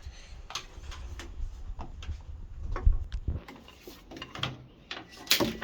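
Scattered light clicks and knocks from handling the washing machine and its plastic parts, with a low rumble under the first three seconds and a sharper knock near the end.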